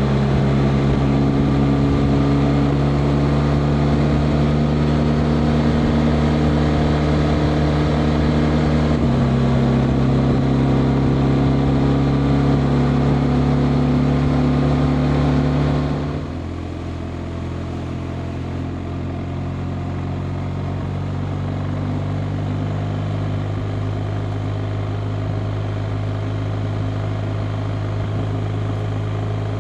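BMW R 1250 RT's boxer twin engine running under way at steady revs. About nine seconds in its note steps down slightly; a few seconds later it drops in pitch and gets quieter, then slowly grows louder again.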